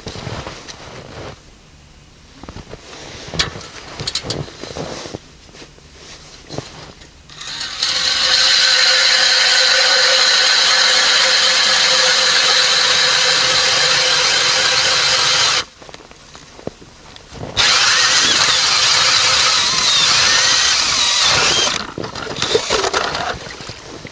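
DeWalt cordless drill turning an ice auger and boring a hole through river ice. It runs steadily for about eight seconds, stops for about two, then runs again for about four seconds. Light clicks and knocks come before it starts.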